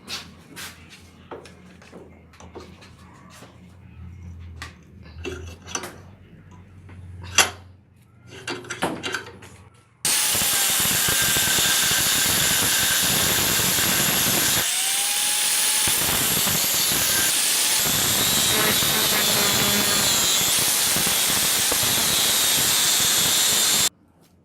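Scattered clicks and knocks of tools being handled. About ten seconds in, a power tool starts up and runs loud and steady against the rusty metal, then cuts off suddenly near the end.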